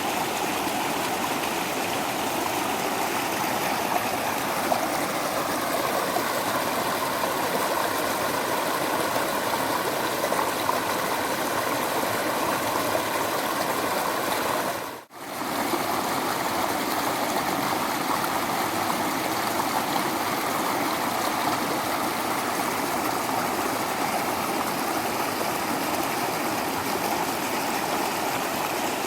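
Waterfall running, a steady even rush of falling water. About halfway through it dips out for a moment and comes straight back.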